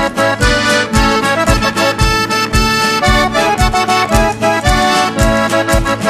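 Instrumental break of a Chilote folk song: accordions play the melody over a bombo bass drum beating steadily about twice a second.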